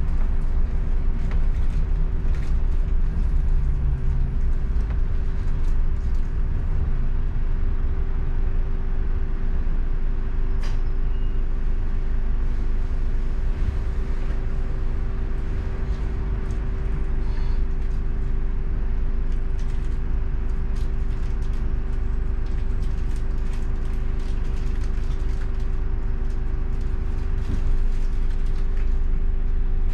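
Interior of a double-decker bus on the move: a steady engine and drivetrain drone with a constant hum, and small rattles and clicks from the body throughout.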